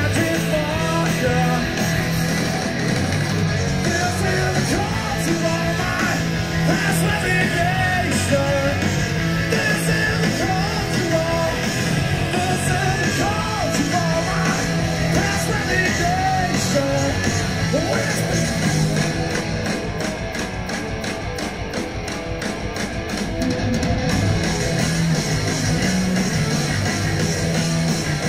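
Live rock band playing a song: electric guitar, bass guitar and drums under a male lead vocal, heard through an audience recording. The music dips slightly in level about twenty seconds in, then comes back up.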